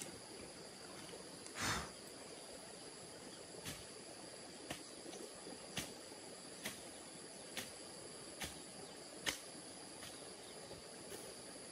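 Steady insect chirring with a high, even whine, and over it a series of short knocks about once a second, the heaviest about two seconds in, as someone works at the ground.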